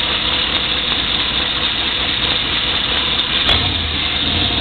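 1994 Chevrolet Silverado 1500 engine idling with a knock that the owner places on the right side of the engine and ties to the oil pressure dropping. A sharp click about three and a half seconds in.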